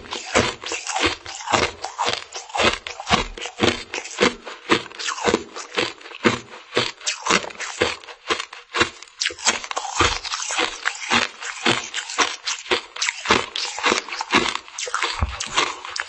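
A frozen Mermaid Tail treat being bitten and chewed: a rapid, steady run of crisp crunches, about three to four a second.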